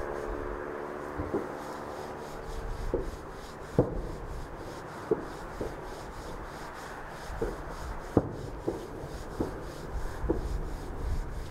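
Distant fireworks shells bursting: a string of about a dozen dull, irregularly spaced bangs, muffled by distance, over a low wind rumble.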